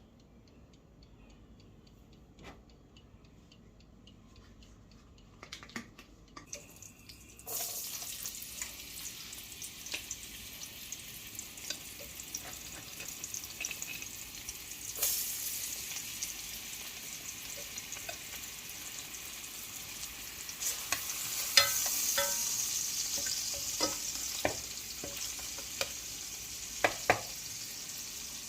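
Food frying in hot oil in a pan: after a few quiet seconds with faint clicks, a steady high sizzle starts suddenly about seven seconds in and runs on, broken by sharp clicks of a cooking spoon against the pot.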